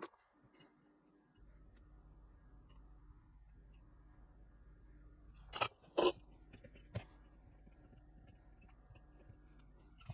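Hands handling a plastic PCB holder on a workbench: two crunchy knocks about halfway through and a lighter click a second later, over a low steady hum.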